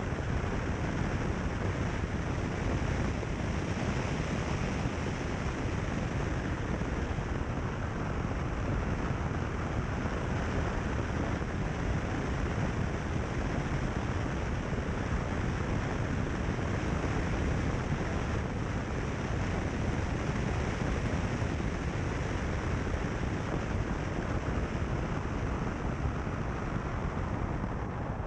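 Steady wind rush over the microphone of a car-mounted camera, with the tyre roar of a car driving along a gravel road.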